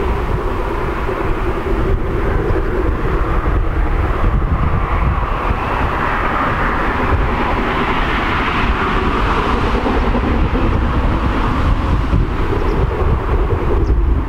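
Steam locomotive working a train in the distance, a steady exhaust sound that swells in the middle, with a heavy low rumble underneath.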